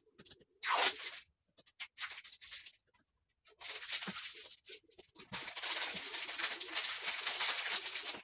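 Short tearing and scratching sounds as a worn vinyl sticker is peeled off a ceramic wall tile, followed by a brief rubbing of hands and then a longer stretch of steady scratchy rubbing.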